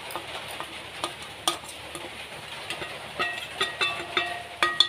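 Steel spoon scraping and tapping on a stainless steel plate to knock spice powders off it. Light scrapes and clicks at first, then from about three seconds in a run of sharper taps that leave the plate ringing.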